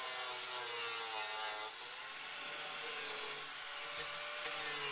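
Angle grinder with a flap disc grinding the cut edge of a steel crossmember flat. Its motor whine dips and recovers as it is pressed into the metal.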